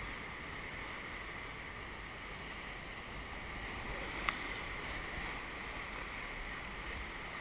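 Steady rush of whitewater rapids around an inflatable raft, with one short sharp click a little over four seconds in.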